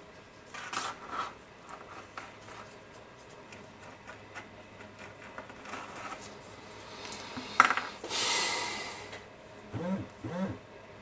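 Small handling sounds of a weathering-pigment applicator working against a plastic compact and plastic model tank tracks: scattered light taps and scrapes, then a sharp click about two-thirds through, followed by about a second of rubbing. Two short falling squeaks come near the end.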